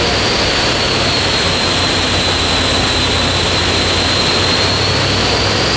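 Single-turbo V8 of a VE SS ute running at a steady speed on a chassis dyno: a loud, even rush with a low hum and a high whine that sags slightly in pitch.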